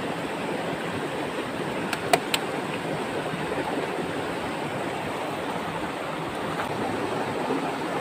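Steady rush of flowing stream water, with a few sharp clicks about two seconds in.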